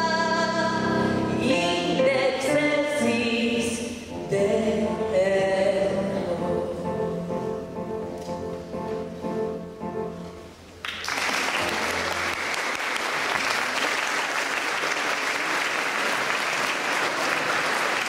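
A boy singing a Polish Christmas carol into a microphone with instrumental accompaniment, finishing the song as the music dies away. About eleven seconds in, the audience breaks into steady applause.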